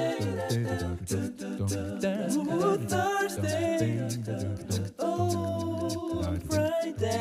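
Background music: a song with singing over a steady, rhythmic low part.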